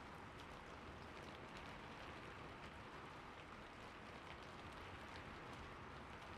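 Faint, steady patter of falling water, with many small droplet ticks scattered through it.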